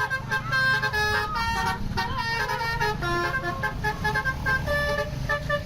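Basuri telolet multi-tone bus horn playing a fast tune of short notes, several pitches sounding together, over the low running of the bus's engine.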